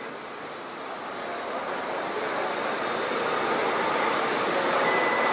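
3636 CNC router jogging along its X axis, its stepper-driven gantry running with a steady mechanical noise that grows gradually louder.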